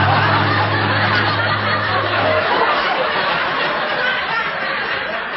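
Audience laughter from a sitcom-style laugh track: many voices laughing together in a dense, steady wash. A low sustained tone runs under it and stops about two seconds in.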